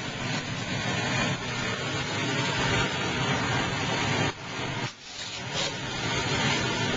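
Food sizzling in a hot pan of oil and water, a steady hiss that drops out briefly twice about four to five seconds in.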